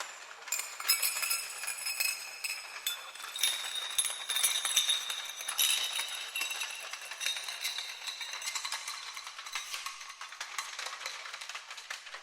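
Metal chains rattling and clinking in quick irregular strikes, with high metallic ringing, processed with heavy reverb. The clinks come thickest in the first half and thin out toward the end.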